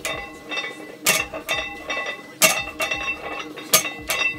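A 225 lb barbell loaded with iron plates set down on the plywood platform between deadlift reps. A metallic clank with ringing from the plates, four times, about every 1.3 seconds.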